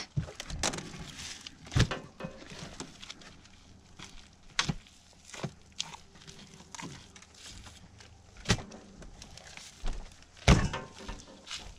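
A fillet knife cutting deer meat on a cutting board: quiet slicing and handling with scattered sharp taps and knocks, the loudest near the end.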